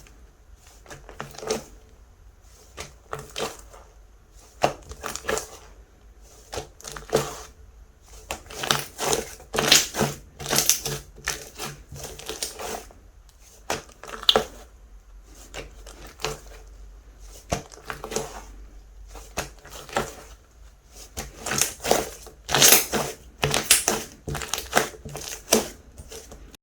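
Hands squeezing and pressing a slime with a little clay mixed in, making irregular sharp clicking pops, some single and some in quick clusters. The densest clusters come about a third of the way in and again near the end.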